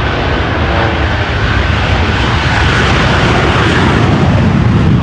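Rocket truck racing down the runway under full power: a loud, steady rushing noise that grows heavier toward the end, mixed with the engine of a stunt plane flying alongside.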